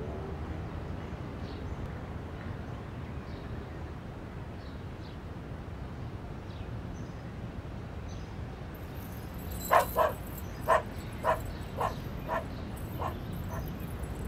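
A dog barking, about eight quick barks starting two-thirds of the way in and growing fainter, over a steady hiss of street ambience.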